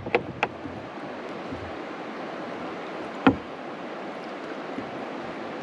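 Steady rush of water stirred at the side of a small boat as hands work a landing net holding a fish, with a couple of small clicks at the start and a single sharp knock about three seconds in.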